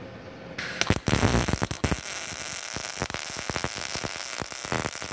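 MIG welding arc on galvanized steel that has been ground clean, from a Multipro MIG 160A SC welder. The arc strikes about half a second in with a burst of sharp crackles, then settles into a steady hiss with scattered crackles.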